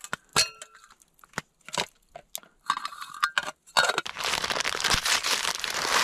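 A small metal camp pot clinks with a brief ring as it is set down on the campfire, followed by scattered light clicks. From about four seconds in, a paper bag crinkles and rustles steadily as it is handled.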